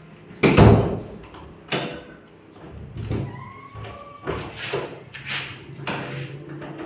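Knocks and clunks of a door and its newly installed lockset being handled, the loudest about half a second in and another sharp knock just under two seconds in, followed by lighter clunks.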